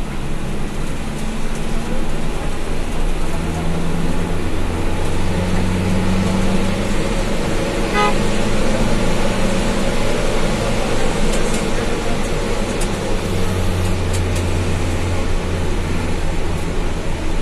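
Bus engine and road noise heard from inside the moving bus, the engine note shifting as it drives. A brief horn toot sounds about eight seconds in.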